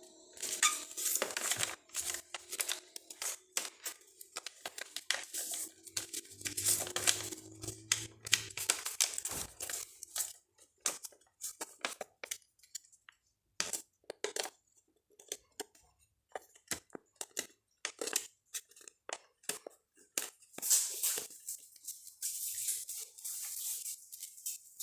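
A sheet of paper being handled and folded: irregular rustling and sharp creasing crackles in many short bursts, with brief pauses between them.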